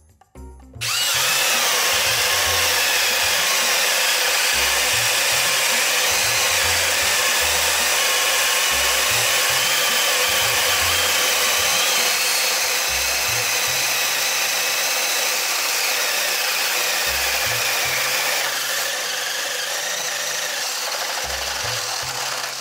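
Cordless drills running under load, their motors whining steadily as 26 mm spade bits bore holes through wood. The level eases slightly about three quarters of the way through.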